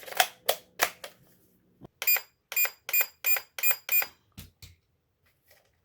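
Three sharp clicks, then six short, high electronic beeps in quick succession, about three a second, followed by two soft knocks.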